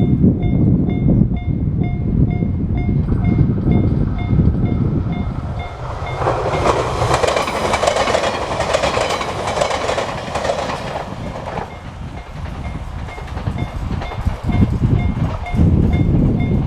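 Railway level-crossing alarm sounding the JR standard single-tone chime, about two strokes a second, while a train passes through the crossing from about six seconds in to nearly twelve, its wheels clattering over the rail joints. Wind rumble on the microphone at the start and end.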